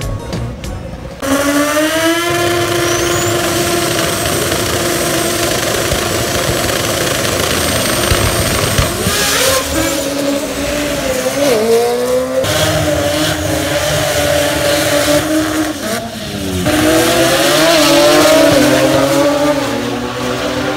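Drag racing car engines at full throttle: about a second in an engine revs up and holds a high, steady note, and after several cuts another engine's pitch climbs as it accelerates down the strip near the end.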